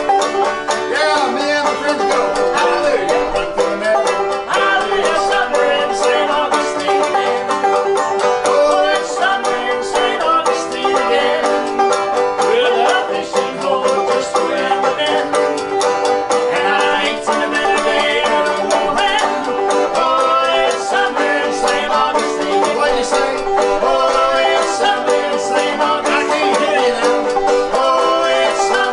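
Live acoustic folk-style string music, an instrumental passage with no singing, carried by quickly picked banjo and other plucked strings at a steady pace.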